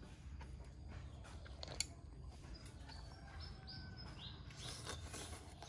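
Faint outdoor background with a few short bird chirps a little past the middle, and a single light click about two seconds in.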